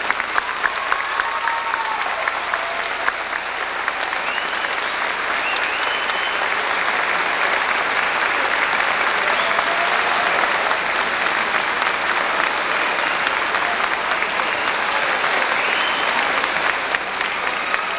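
A large audience applauding steadily, with a few short high whoops rising above the clapping.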